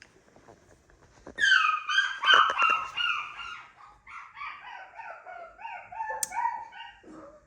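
A dog whining and yelping in high, falling cries, loudest from about a second and a half to three seconds in, then a string of shorter falling whines that stops shortly before the end.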